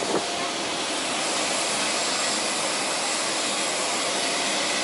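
Steady rushing noise of a jet turbine with a faint high whine, level and unbroken. A couple of sharp clicks right at the start.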